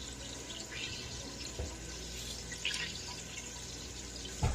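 Kitchen tap running into the sink while carrots are rinsed under it, a steady hiss of water with a few faint clicks and two short knocks, one about a second and a half in and one near the end.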